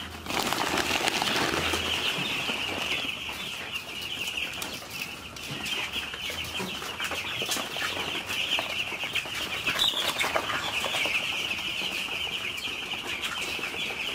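A flock of about three hundred ten-day-old chicks peeping continuously, many high calls overlapping in one dense chorus.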